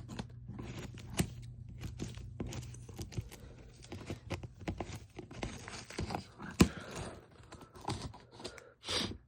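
Cardboard box and packing tape being cut with scissors and torn open: scattered snipping clicks and rustling, with a short tearing burst near the end.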